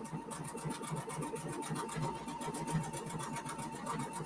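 Husqvarna Viking computerized sewing machine stitching an Omni-Motion decorative stitch: an even, rapid run of needle strokes, about eight a second, over a steady motor whine.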